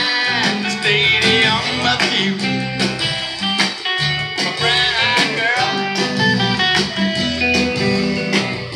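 Music with guitar in a country-blues style.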